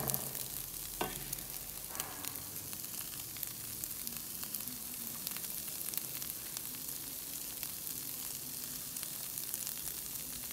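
Seasoned banana-peel taco 'meat' sizzling steadily in a frying pan, a soft crackling hiss with a couple of sharper clicks about one and two seconds in.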